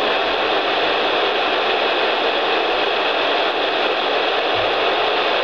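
NOAA weather radio hissing steady, loud static after its station has gone off the air, knocked out by lightning in the middle of an emergency alert.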